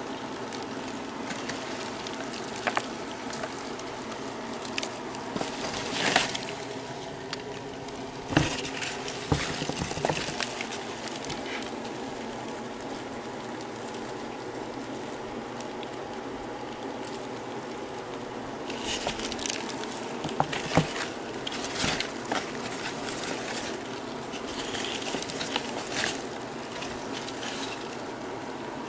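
Scattered rustles and scratchy clicks in a plastic tub of cardboard egg crates holding dubia roaches, over a steady hum. The rustling is busier about six to ten seconds in and again from about nineteen to twenty-six seconds.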